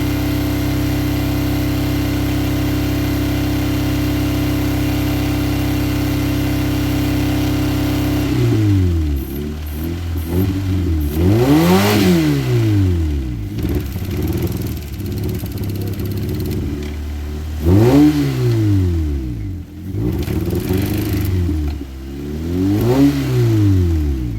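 Toyota car engine, damaged by airsoft BBs fired into its top end, runs at a steady speed, then is revved up and let fall back three times from about eight seconds in.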